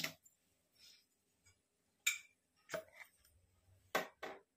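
About four short, sharp clicks and taps of kitchen utensils and containers as spice powders are spooned into a bowl of chicken and chopped vegetables.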